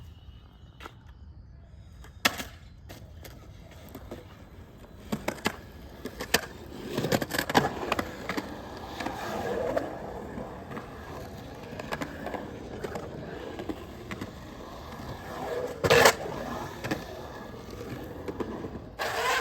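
Skateboard rolling on skatepark concrete, its wheels making a steady rumble, broken by a string of sharp clacks and knocks of the board, the loudest about sixteen seconds in.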